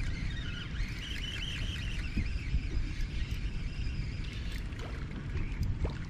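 Water lapping around a bass boat's hull, heard as a steady low rumble, with faint higher chirping above it and no single loud event.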